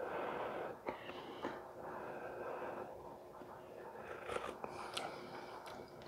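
Soft blowing and sipping as a spoonful of hot pan sauce is tasted, with a few light clicks.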